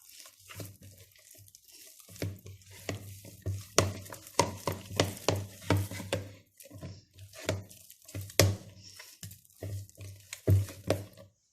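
Sticky brioche dough being kneaded by hand as butter is worked into it: repeated soft slaps and squelches, irregular, about two a second, stopping abruptly near the end.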